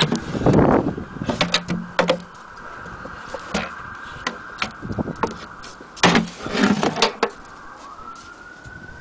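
The wooden cover and case of an antique hand-crank Singer sewing machine being handled and lifted off: a run of knocks, bumps and wood rubbing on wood, loudest near the start and about six seconds in. Behind it a steady high tone runs, rising and falling like a distant siren near the end.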